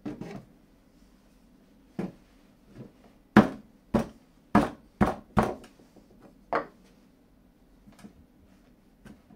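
Hard wooden knocks and taps as turned stretchers and legs are pushed home into the holes of a wooden stool and the stool is knocked on the workbench. About ten knocks, the loudest in a quick run of five, about two a second, in the middle.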